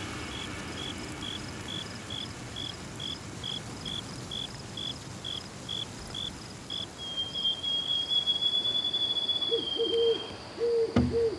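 Night-jungle sound effect of insects chirping in a regular beat of about two chirps a second, which merges into a long steady trill. Low owl hoots come in near the end.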